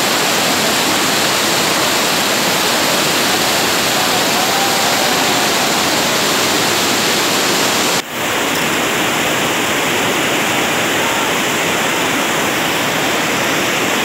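Whitewater river rapids rushing, a loud, steady churning of water that drops out for an instant about eight seconds in.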